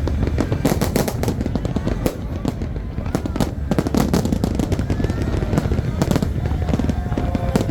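Fireworks display bursting: many sharp bangs and crackles in quick succession over a continuous low rumble of booms.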